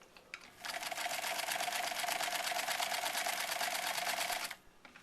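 Singer 306W swing-needle sewing machine running a test seam. It stitches at a rapid, even rhythm over a steady motor whine for about four seconds, starting just under a second in after a faint click and stopping abruptly shortly before the end.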